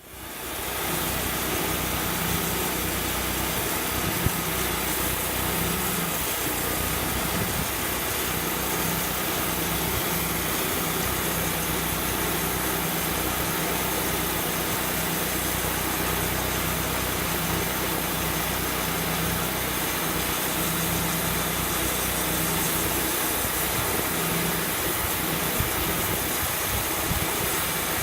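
Portable sawmill's engine running steadily under a constant wash of mechanical noise.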